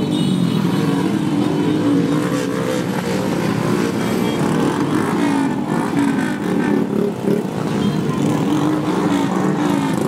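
Steady motor-vehicle engine noise, with voices mixed in.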